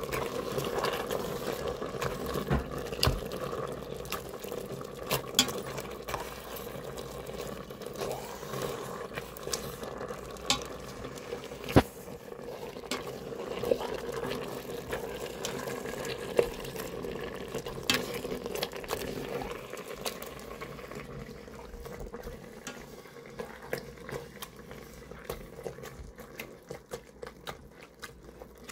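Soft cooked Jerusalem artichokes being mashed with a metal potato masher in a stainless steel Instant Pot insert: wet mashing with irregular clicks and scrapes of metal against the pot. It grows quieter in the last third.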